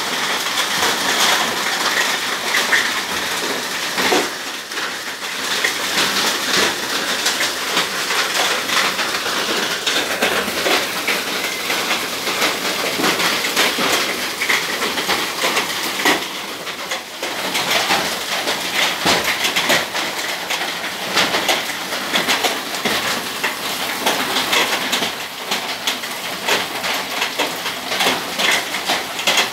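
Heavy hailstorm: hailstones and rain pelting a concrete patio in a dense, continuous clatter of countless small impacts.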